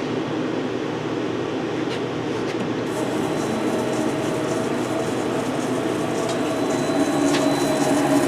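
Clausing CKE6140Z CNC lathe running a program after cycle start: the spindle and gear-shifted headstock run with a steady mechanical hum. A higher tone joins about three seconds in, and the running grows louder near the end.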